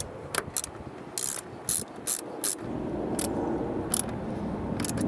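Hand ratchet with a 10 mm socket clicking in a series of separate short strokes, tightening the clamp nut on a car battery's positive terminal.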